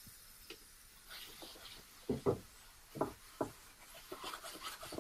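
Gloved hand wiping mineral spirits over an old wooden chair seat, rubbing off tacky wood-filler residue. A few separate scrubbing strokes come about two to three and a half seconds in, then quicker, lighter rubbing near the end.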